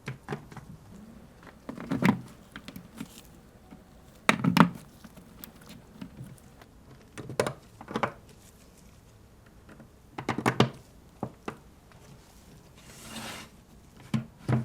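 Lego bricks being handled and pressed together: short clusters of small plastic clicks and knocks every couple of seconds, with a brief soft rush near the end.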